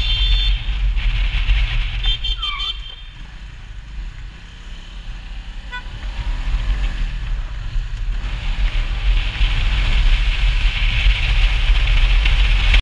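Wind rush and engine rumble from a Kuba Superlight 200 cruiser motorcycle under way, picked up by a helmet-mounted camera. The rush eases from about three seconds in and builds again from about eight seconds. A short high tone sounds about two seconds in.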